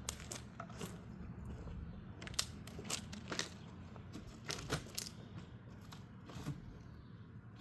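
Cardboard shipping box being opened and handled: scattered crackles, crunches and sharp clicks of cardboard packaging.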